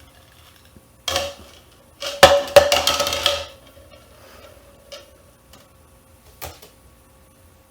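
A toucan making short bursts of rattling, knocking sounds: a brief one about a second in, then a longer run of several sharp knocks, with a few faint ticks after.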